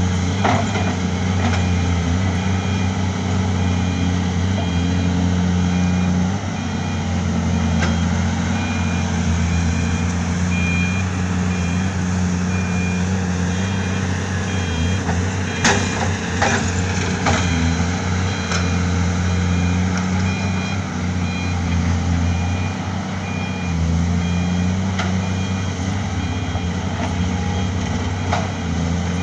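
Diesel engines of heavy earthmoving machinery running steadily, with a back-up alarm beeping over and over. There are occasional sharp knocks, a few in quick succession just past the middle.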